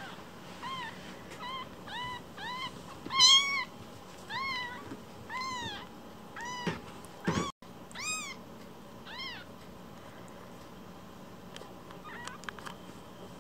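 A week-old kitten mewing: about a dozen short, high mews, each rising and falling in pitch, roughly one a second, stopping about nine seconds in. Faint clicks of handling follow near the end.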